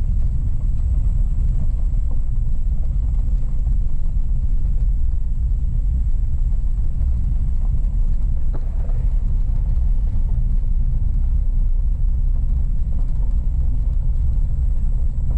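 Car driving along a gravel road, heard from inside the cabin: a steady low rumble of tyres and engine.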